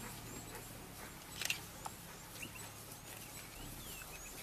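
Quiet outdoor ambience: a few faint high-pitched chirping calls, some with short pitch glides, over a low steady hum, with one soft knock about a second and a half in.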